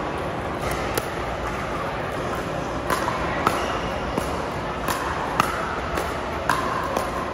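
Pickleball rally: about seven sharp, irregularly spaced pops of hard paddles striking the plastic ball and the ball bouncing on the court, over a steady hall murmur.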